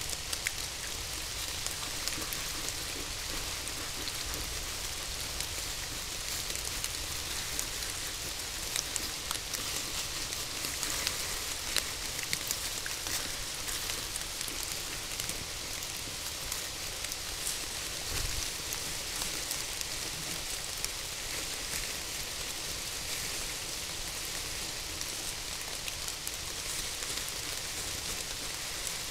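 Steady rain falling on the forest canopy and leaf litter, with many individual drops ticking.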